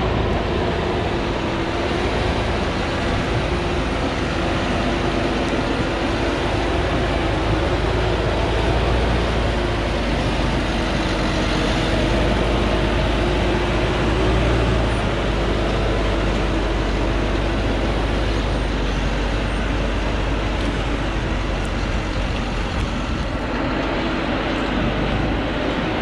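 Diesel engine of a heavily loaded Thaco Forland four-wheel-drive truck labouring uphill on a dirt track as the truck passes close by. The engine runs steadily under load, its note wavering slightly.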